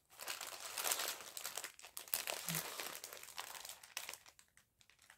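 Plastic packets of embroidery floss skeins crinkling as they are handled, with dense crackling for about four seconds that thins to a few faint crackles near the end.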